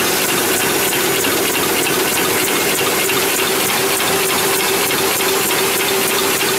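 Double-layer napkin folding machine running at speed: a steady, fast mechanical clatter over a constant hum.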